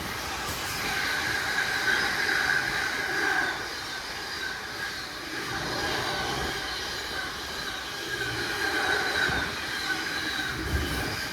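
Freight train passing at high speed, its wagons rolling by with a steady rumble and a sustained high squeal from the wheels that swells and fades.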